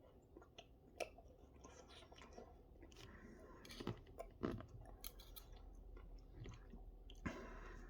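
A person chewing a mouthful of roast dinner, with soft wet crunches and clicks, and a few sharper clicks of the cutlery on the plate or tray.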